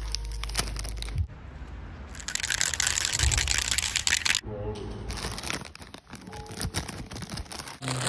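Metallic foil gift bag crinkling and rustling as it is handled and opened. A dense, loud hiss runs for about two seconds in the middle and cuts off abruptly.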